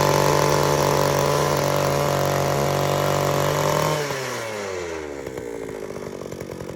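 Small two-stroke petrol engine of a mini tiller running steadily, then cut off about four seconds in, its pitch falling as it winds down. A quieter rapid ticking continues afterwards.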